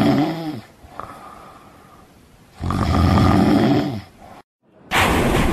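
A person snoring loudly: two long snores about two and a half seconds apart, with a quieter breath between them. Near the end, after a short break, a loud noisy sound cuts in.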